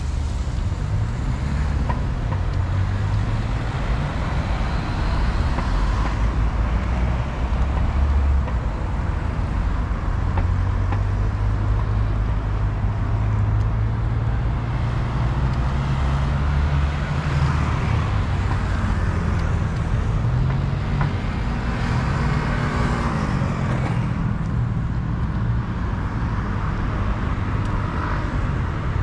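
City road traffic: cars and buses driving past with a continuous low engine hum and tyre noise, one vehicle passing closer a little over three-quarters of the way through.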